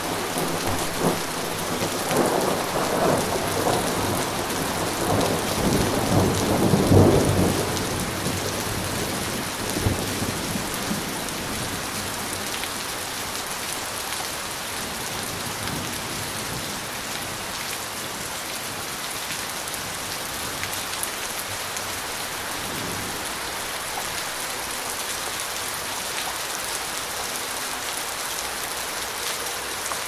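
Steady rain falling, with a roll of thunder that builds from about two seconds in, is loudest around seven seconds and fades out by about ten seconds. A fainter low rumble of thunder comes a little past the middle.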